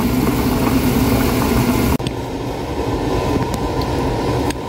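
Water at a rolling boil in a pan of hot dogs: a steady bubbling hiss over a low hum. About two seconds in it cuts off abruptly, leaving a duller steady hum with a faint high tone and a few small ticks.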